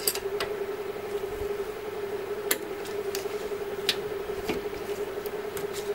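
A steady hum of unclear origin, with a handful of light, sharp clicks and taps from a wrench and bleeder hose being handled at a scooter's brake caliper bleed nipple.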